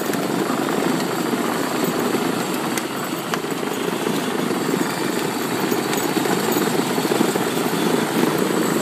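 Electric ride-on toy pickup truck driving on pavement: a steady rolling noise from its motor and hard plastic wheels, with a few faint clicks.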